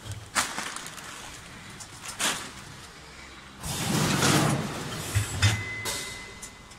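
Vertical packing machine working: several sharp clacks, and a longer, louder hiss about four seconds in.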